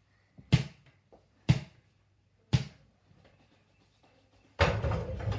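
A mini basketball bounced on the floor, three sharp bounces about a second apart. Near the end comes a louder, longer clatter as the shot strikes the mini hoop's backboard and rim, which rattle against the wardrobe door they are mounted on.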